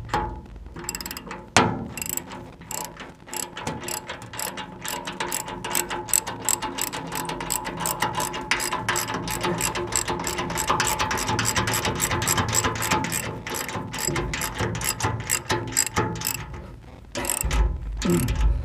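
Socket ratchet wrench clicking steadily, about four clicks a second, as it tightens a concrete anchor bolt through a steel safe's floor. A low rumbling comes in near the end.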